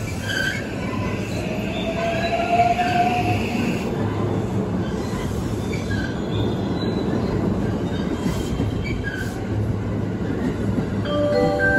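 JR West 323 series eight-car electric train pulling out and running past, its wheels rumbling on the rails, with a rising whine about two seconds in.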